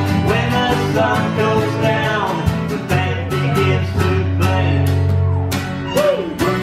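Small acoustic band playing a song live: strummed acoustic guitar over a bass guitar line, with a melody on top that bends and glides in pitch.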